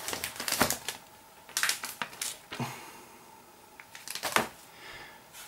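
Hands handling an ASUS Vivo Tab RT keyboard dock: several short clicks, knocks and rustles at irregular intervals, the loudest about four seconds in.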